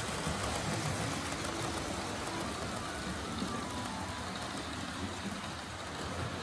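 Several 00-scale model trains running on the layout's track: a steady whirr and rumble from their motors and wheels on the rails.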